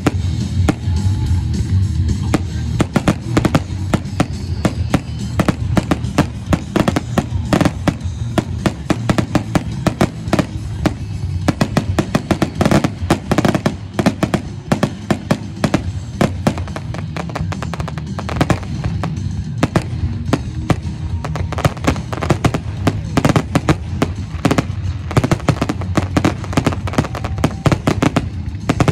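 Professional 1.3G display fireworks going off in a rapid, dense barrage of bangs and crackling, over music.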